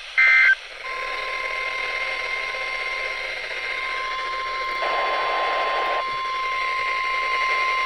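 NOAA Weather Radio alert signal. A short burst of SAME data tones is followed, about a second in, by the steady 1050 Hz warning alarm tone over radio static, which announces a new warning.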